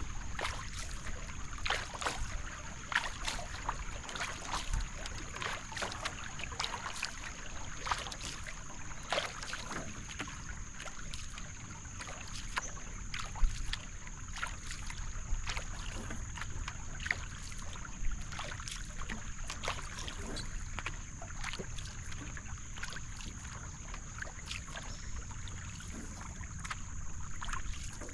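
Canoe paddle strokes: the blade dipping and pulling through calm creek water, with irregular splashes and drips as the paddle is lifted and switched, and water washing past the hull of a solo marathon racing canoe. A steady high-pitched whine runs underneath.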